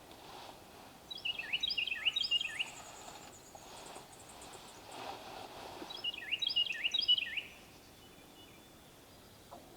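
A songbird singing two short phrases of quick, repeated falling notes, about four seconds apart, with a faint high trill from another bird between them, over quiet outdoor background.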